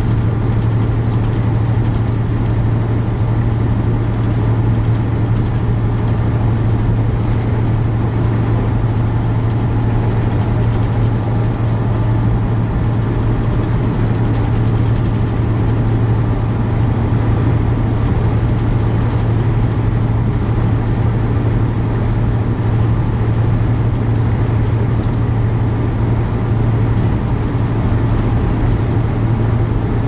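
Steady drone of a semi-truck's diesel engine and road noise, heard inside the cab at highway cruising speed, with a strong, even low hum.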